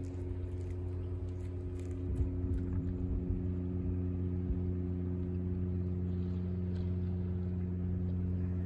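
A nearby engine running steadily at idle, a constant low hum. Faint clicks of a cat chewing on a raw fish come through in the first few seconds.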